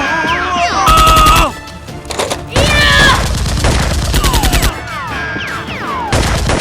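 Rapid automatic gunfire sound effects in three bursts: a short one about a second in, a longer one of about two seconds in the middle, and a short one at the end, each at about ten shots a second. Falling whistle-like tones sound between the bursts.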